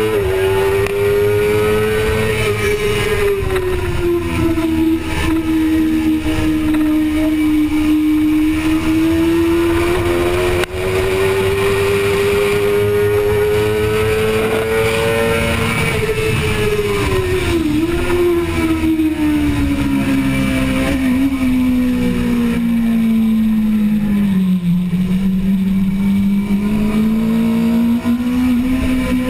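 Onboard sound of a 2005 Suzuki GSX-R600's inline-four engine running hard on track. Its pitch slowly rises and falls with the throttle, dips sharply a little after halfway, sinks to its lowest near the end as the bike slows for a corner, then climbs again.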